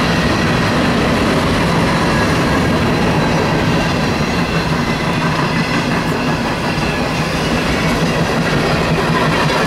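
Norfolk Southern freight train's cars (tank cars, covered hoppers, flatcars) rolling past, a loud steady rumble and rattle of steel wheels on rail with some clickety-clack and faint high thin tones.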